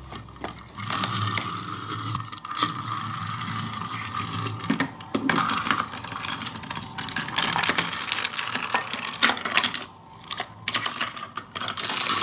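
Die-cast toy cars rolling and clattering over hard plastic playset ramps and track, with irregular clicks and rattles of plastic parts being handled. It drops off briefly about ten seconds in.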